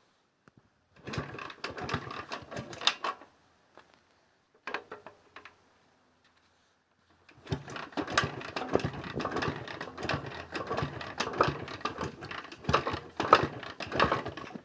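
Jawa 634 two-stroke twin engine running in three short spells, with a dense, rapid mechanical clatter. The clatter is a piston knock that the owner puts down to worn pistons, gudgeon pins and pin bushings, needing a rebore.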